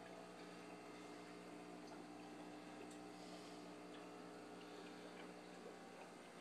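Faint steady hum of aquarium equipment, the air pumps and filters running the fish tanks, with a few faint scattered ticks.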